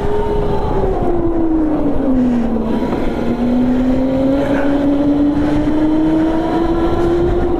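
Go-kart engine running at speed on the track. Its pitch falls about two seconds in as the revs drop, then climbs slowly as the kart accelerates again.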